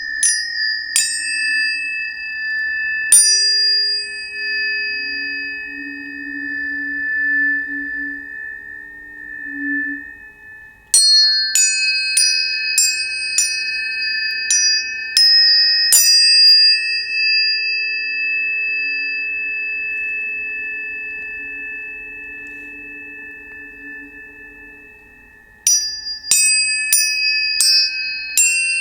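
Tuning forks struck in three groups of quick strikes, near the start, from about eleven to sixteen seconds in, and near the end. Each strike gives a bright metallic click, then a pure ringing tone that holds and slowly fades, several pitches sounding together.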